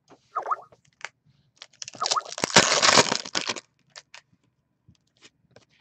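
Crinkling and tearing of plastic or foil wrapping as a trading-card pack is handled and opened, loudest for about two seconds in the middle, with light clicks of cards being handled before and after.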